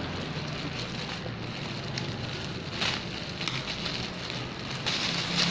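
Packaging being handled and opened by hand, with steady crinkling and rustling and a few sharp clicks.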